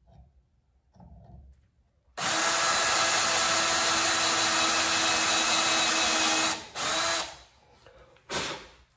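Cordless drill running, boring a 3/16-inch hole into a handlebar tube. It starts about two seconds in and runs steadily for about four seconds, then gives a short second burst and a brief third one near the end.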